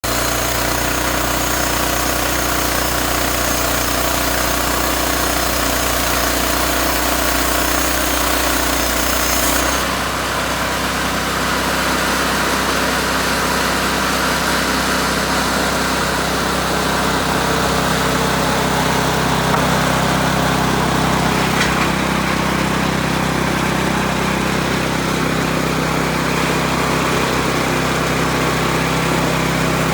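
Homemade sawmill's small engine running steadily while cutting wood; its tone shifts abruptly about ten seconds in and holds at the new pitch.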